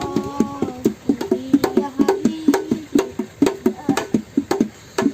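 Hand percussion beating out a fast, steady rhythm of short, pitched knocks, about five a second. A voice holds one note briefly at the start.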